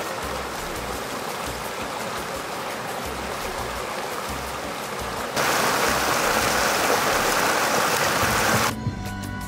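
Water pouring over a low stone weir into a pool, a steady rushing. It gets louder about five seconds in and drops back shortly before the end.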